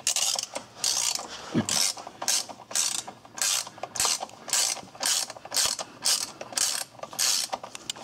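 Hand ratchet clicking in steady back-and-forth strokes, about two a second, as it runs a long starter mounting bolt in by hand.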